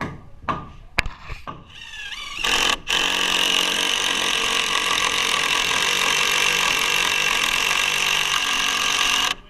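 Cordless DeWalt impact driver driving a long screw into wooden framing. A few clicks and a short rising whine as it spins up, then about six seconds of steady impacting that cuts off suddenly near the end.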